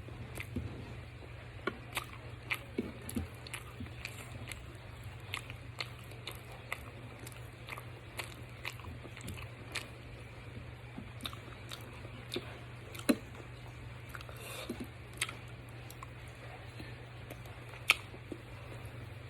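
Close-up mukbang eating sounds of someone chewing boiled saba bananas: irregular wet mouth clicks and smacks. Two clicks stand out louder, one about two-thirds through and one near the end, over a steady low hum.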